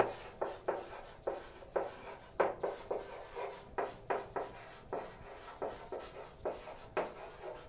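Chalk writing on a blackboard: short, uneven taps and scratches, about three strokes a second, as a line of words is written out.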